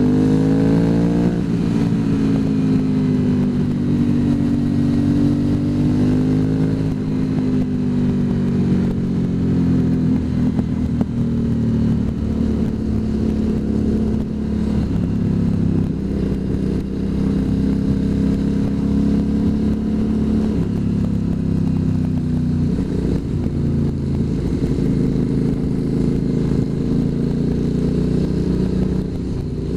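Motorcycle engine heard from the rider's own bike. It pulls with rising pitch through the first second or two while overtaking a car, then cruises steadily with small rises and falls in engine speed.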